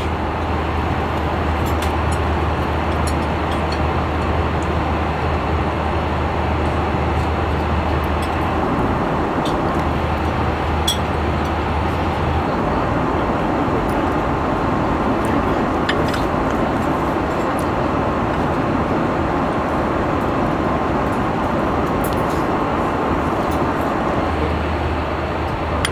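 Steady airliner cabin noise in cruise flight: an even rush of air and engine drone, with a few faint clicks of cutlery on the tableware.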